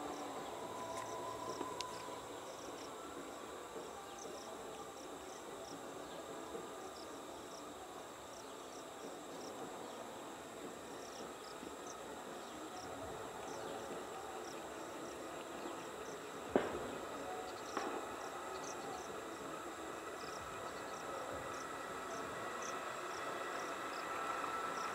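Insects chirping in short repeated calls over a steady high insect drone, with the faint running noise of an approaching EMU local train slowly growing louder toward the end. A single sharp click about two-thirds of the way through.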